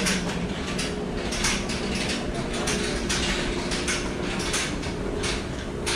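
Shopping-mall ambience: irregular sharp clicks and clatter, a few a second, over a steady background hum.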